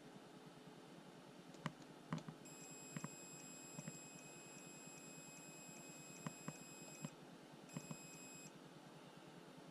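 Multimeter continuity beeper sounding while its probes touch the rails of an old Atlas code 80 N scale turnout. The beep is a steady high tone that starts a couple of seconds in and holds for about five seconds. It breaks off, then gives a second, shorter beep. Each beep means the probes are finding an electrical path through the rails. Light clicks of the probe tips on the track come through it.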